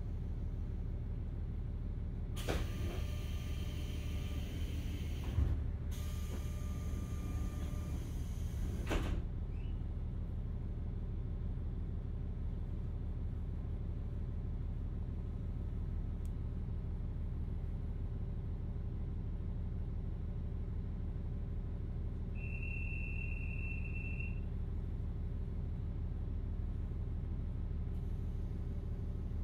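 KiHa 40 diesel railcar standing at a station with its engine idling, a steady low hum. About two seconds in come two hisses of compressed air, each about three seconds long, from the pneumatic sliding doors. A short, high, steady beep sounds about 22 seconds in.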